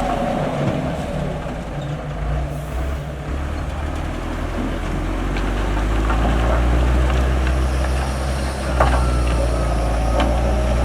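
Heavy diesel engine of an earthmoving machine running under load. It eases off in the first few seconds and builds up again from about six seconds in, with a sharp knock about nine seconds in.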